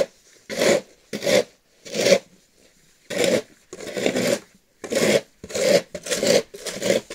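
Two plastic snow shovels scraping thin snow across the ground in a string of short, uneven strokes, about nine in all.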